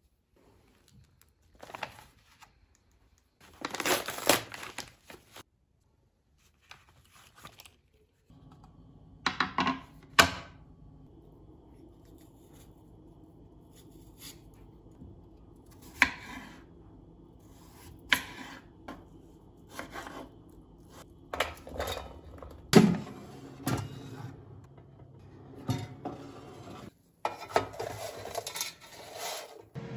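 Kitchen handling sounds: scrapes, clicks and knocks of utensils and a knife on a wooden cutting board and in a metal basket, over a steady low hum that starts about eight seconds in. Before that come only a few soft rustles and taps.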